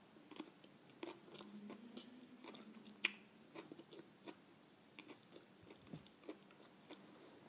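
A person chewing raw vegetables with the mouth closed: faint, irregular crunches close to the microphone.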